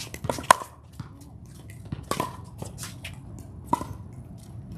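Pickleball rally: sharp pocks of paddles striking the plastic ball, about four in four seconds, the loudest about half a second in.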